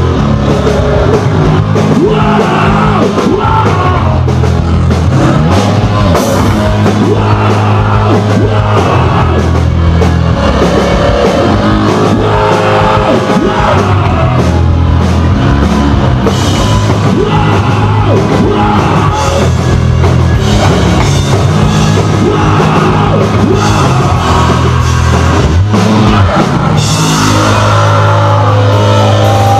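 A hardcore punk band playing live at full volume: distorted guitar and bass, a pounding drum kit and shouted vocals.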